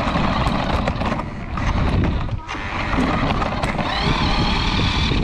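Radio-controlled car driving with the camera mounted on it: a steady rumble and rattle from the chassis and wheels on the road, with a motor whine that rises in pitch about four seconds in as it speeds up.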